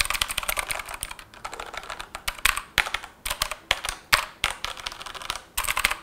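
Mechanical keyboard keys typed in fast, irregular flurries of clicks, with a few brief pauses.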